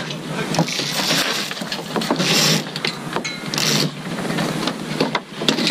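Mainsheet rope hauled hard through the pulley blocks of a Hobie 16 catamaran, a test of rig tension: many sharp clicks, with two louder rasping rushes of rope about two and three and a half seconds in.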